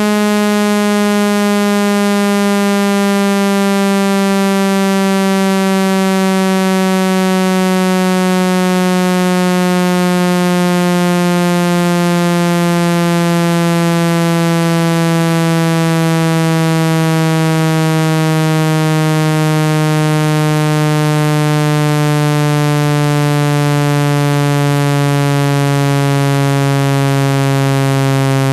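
Synthesized buzzing tone, rich in overtones, gliding slowly down in pitch: a speaker water-eject sound, meant to vibrate water out of a phone speaker.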